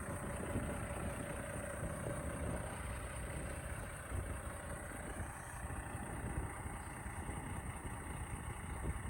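Semi truck's diesel engine idling, a steady low rumble, with wind buffeting the microphone.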